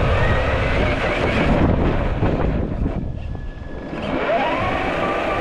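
Traxxas TRX-4 1/10-scale RC crawler's electric motor and drivetrain whining as it drives over rough ground. The whine drops away about halfway through and then winds back up and holds, over a constant low rumble.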